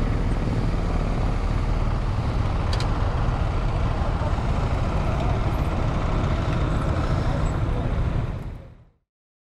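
Steady motorcycle and road noise with a heavy low rumble, fading out to silence about eight and a half seconds in.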